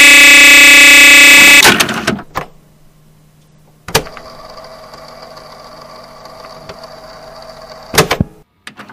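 A very loud, harsh electronic buzz cuts off just under two seconds in. A click follows, then a low steady electrical hum with faint hiss, ended by a quick burst of clicks near the end.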